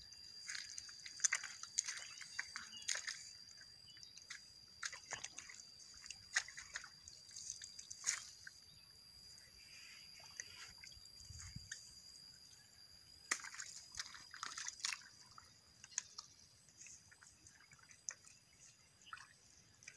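Hands pushing rice seedlings into soft, waterlogged paddy mud: irregular small squelches, slops and drips of muddy water.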